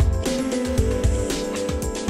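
Background music with a steady beat: regular drum hits over a deep bass and held tones.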